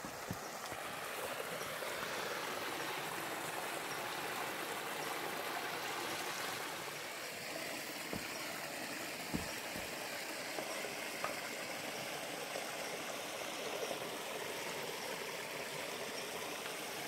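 A stream flowing, a steady rushing of water, with a few faint knocks.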